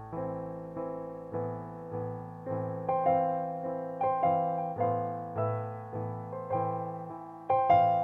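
Digital stage piano played in an improvised, chordal manner: chords struck about twice a second, each ringing and fading before the next, with a louder chord near the end.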